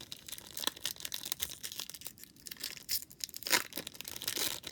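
Plastic wrapper of a trading card pack being torn open and crinkled, a busy crackling with a louder rip near the end.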